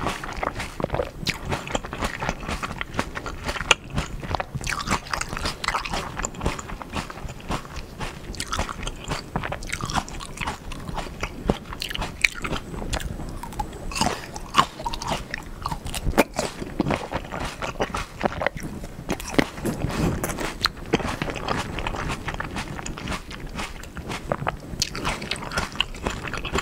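Chewing and biting of crisp Black Sapphire grapes eaten whole with their skins: a continuous run of wet crunches and small clicks.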